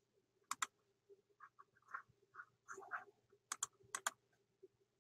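Sharp computer mouse clicks, in quick pairs about half a second in and again near four seconds, with softer irregular ticks in between, over a faint steady hum.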